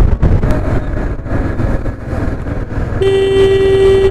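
Steady road and wind rumble of a motorcycle ride in traffic. About three seconds in, a vehicle horn sounds one steady note for about a second.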